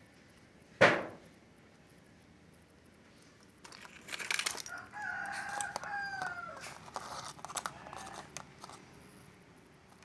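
A rooster crowing in the background, one long call that drops in pitch at its end, over crinkling handling noise. A single sharp knock just under a second in is the loudest sound.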